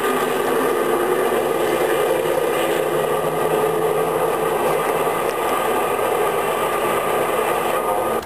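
A train running on the rails: a steady, loud rushing rumble of wheels on track that holds even throughout.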